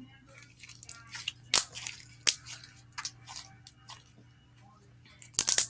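Slime being stretched and squished in the hands, giving irregular crackling and popping clicks, the loudest about one and a half and two and a quarter seconds in, with a quick run of pops near the end.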